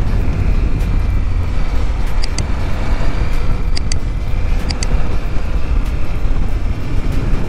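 Wind rushing over the microphone while riding, with the CFMOTO 800MT's parallel-twin engine running steadily underneath at cruising speed.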